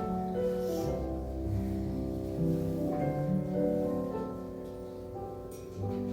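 Electronic keyboard playing a slow hymn in held chords over a bass line, the notes changing about once a second.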